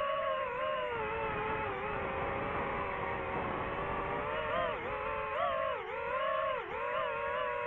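DJI FPV drone's motors and propellers whining steadily, the pitch sagging and climbing again with quick throttle changes, with several sharp dips in the second half.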